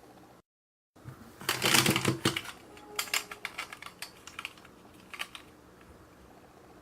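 A run of quick, light clicks and clatter from small hard objects being handled, loudest in a dense burst about a second and a half in, followed by scattered single clicks. It comes after a brief total dropout where the audio was cut.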